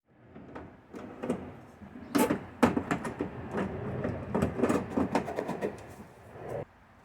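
Hardware being handled and fitted into a car door: a run of sharp knocks and clicks with some scraping, the loudest knocks two to three seconds in, stopping abruptly near the end.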